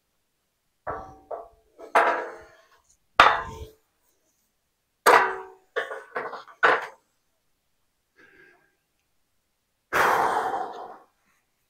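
Steel beam clanking and knocking as it is handled and set into a chop saw's base and clamp: a series of separate metal knocks, each ringing briefly, with a longer, rougher clang about ten seconds in.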